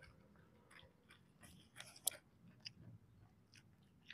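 Close-miked chewing of fried snacks (gorengan), soft wet mouth sounds and small crunches, with one sharper crunch about two seconds in.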